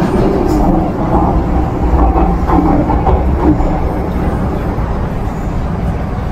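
Inside an MTR M-Train subway car running underground: a steady rumble of wheels and running gear, slowly easing off as the train slows into a station.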